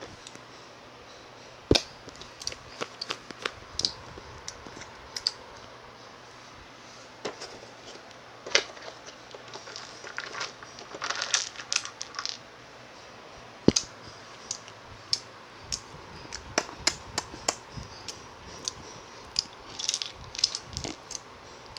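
Close-up eating sounds: irregular crunches, clicks and crinkles, some sharp and loud, at uneven intervals.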